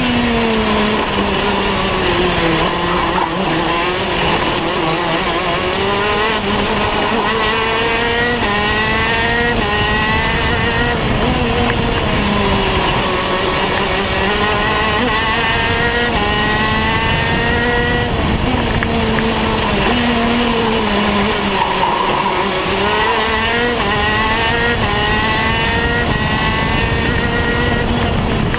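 KZ2 125cc two-stroke gearbox kart engine at racing speed, revs dropping into the corners and climbing in steps through the gears on the straights, heard from the kart itself.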